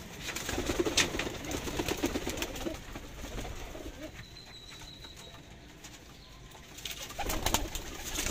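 Sialkoti pigeons cooing, with a rolling coo in the first few seconds, and a few short clicks and a brief burst of rustling near the end.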